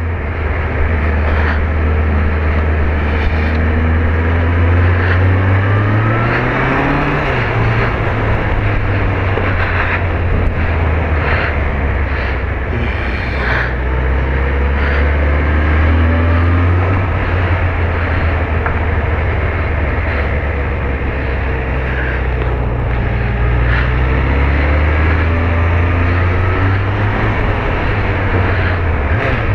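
Motorcycle engine running on the road under wind rush on the rider's microphone, its revs climbing and dropping back a few seconds in and again later.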